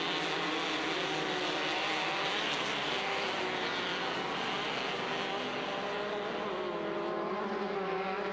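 Engines of several limited-class off-road racing buggies running hard together, their pitches rising and falling as they rev through the course, over a steady hiss.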